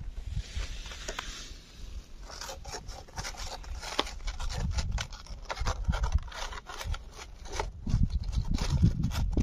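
A cat chewing and eating food: an irregular run of quick clicks and scraping sounds.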